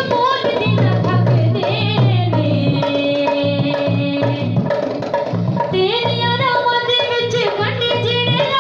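A woman singing an Urdu/Punjabi Christian worship song into a handheld microphone over amplified backing music with a steady drum beat, holding long notes.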